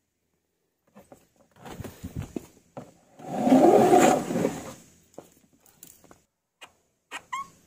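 Plastic garden hose reel and hose being handled on concrete: scattered clicks and knocks, then a louder scraping rattle lasting about two seconds in the middle as the hose is pulled out, followed by a few more short clicks near the end.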